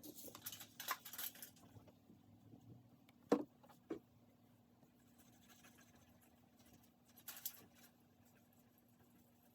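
Quiet handling sounds while hair dye is brushed onto a wig: light scratching and tapping at first, two sharper knocks about three and a half seconds in, and another brief clatter near the end, over a faint steady hum.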